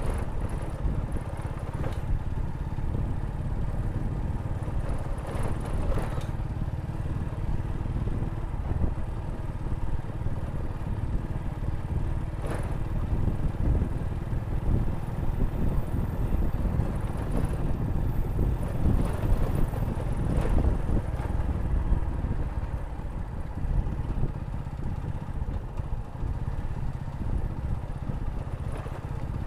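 Motorcycle being ridden, its engine running steadily under a heavy low rumble, with three short knocks spread through.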